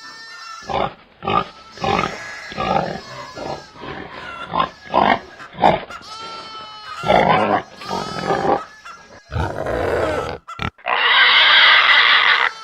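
Pigs grunting in a run of short, separate grunts, with a longer, louder, harsh call near the end.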